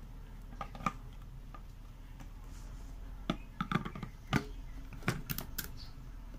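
Plastic clicks and knocks as the lid is fitted onto a blender jar and the stainless-steel motor head is set and locked on top: a couple of sharp clicks near the start, then a quick cluster of knocks and clicks a few seconds in and a few more near the end. The motor is not yet running.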